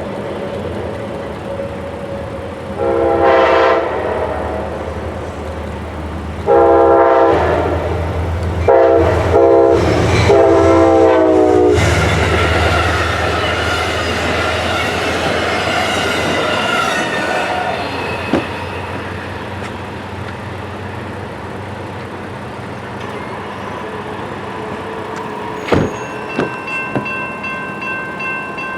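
Diesel locomotive air horn sounding a series of blasts in the first twelve seconds, the later ones longer and run close together, followed by the train rolling past with a steady rumble and wheel noise. Near the end a sharp click, then a repeating ringing tone.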